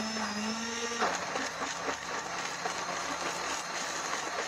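Countertop blender running: the motor whines at a steady pitch, then about a second in the sound turns to a dense, steady churning as the blades chop through the leaves and water in the jar.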